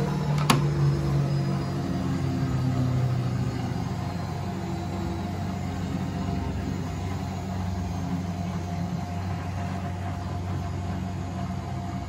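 Miele Novotronic W925 front-loading washing machine running a wash cycle: a steady mechanical hum of the machine with water in the drum. A single sharp click sounds about half a second in.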